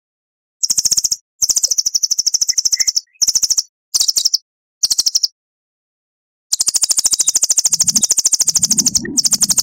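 A songbird gives bursts of very fast, high-pitched trills: about seven separate runs of rapid notes, the longest two and a half seconds long, with short pauses between. A low rumble sits under the last trills near the end.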